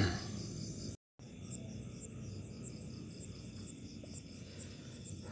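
Crickets chirping in a steady, even rhythm, about two to three chirps a second, over a low background hum. The sound drops out briefly about a second in.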